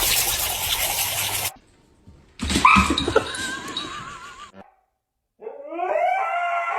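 Dog whimpering and yipping across several abruptly cut clips, ending in high, pitched whines that slide up and down.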